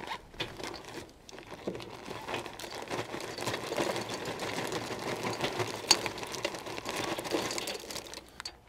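Cherry wood chips pouring out of a paper bag into a Pit Barrel Cooker's drum: a dense, rapid rattle of small pieces with paper crinkling. It builds after about two seconds, with one sharper click about six seconds in.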